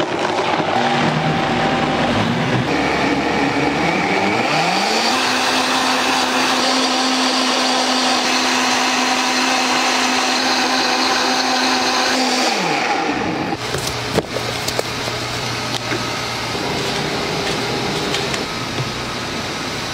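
Countertop blender running on a liquid fruit mixture: the motor climbs in pitch to high speed about four seconds in, holds steady, then winds down and stops about two-thirds of the way through. A knock follows shortly after it stops.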